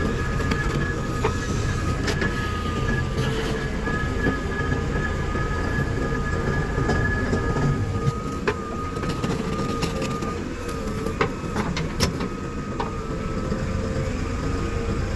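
JCB 3DX backhoe loader's diesel engine working under load, a steady heavy rumble with a high whine over it. A few sharp knocks of metal come through, one about two seconds in and several in the last third.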